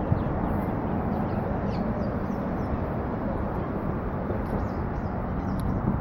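Wind rumbling steadily on the microphone, with a few faint bird calls.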